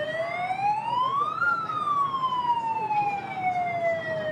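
Siren wailing through one slow cycle: its pitch climbs for about a second and a half, then falls slowly for the rest of the time, over a steady hubbub of a crowded hall.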